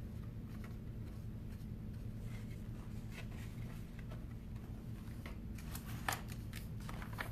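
Faint scratchy swishes of a large paintbrush stroking paint across a canvas, with a few sharper strokes in the second half, over a steady low hum.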